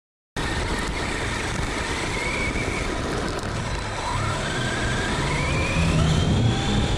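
Arrma Big Rock V3 RC truck driving over rough asphalt, heard through its onboard camera, with dense tyre and rattle noise. The electric drivetrain's whine climbs steadily in pitch from about four seconds in as the truck speeds up. The sound starts after a split second of silence.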